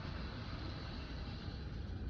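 TYCO Southern Crescent model locomotive running on the layout track: a steady rumble and hiss of its motor and wheels on the rails.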